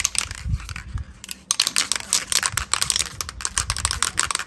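Aerosol spray paint can being shaken hard, its mixing ball rattling in rapid clicks that become strong and continuous about a second and a half in. The shaking mixes the paint before spraying.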